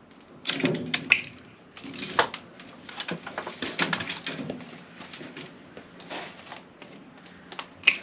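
White plastic render bead being handled and offered up to a window reveal: a scatter of irregular light clicks, taps and plastic rattles as the perforated strip knocks against the window frame and brickwork.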